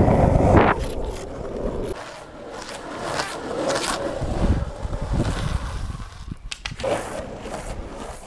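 Wind buffeting the microphone for the first second. Then the urethane wheels of longboards slide across asphalt in several short scrapes, the clearest a few seconds in and again near the end.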